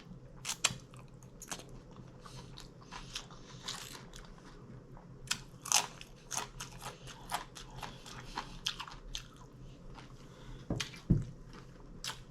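Close-miked chewing of a mouthful of taco salad: a run of irregular crunches and wet mouth clicks, with a couple of low thumps near the end.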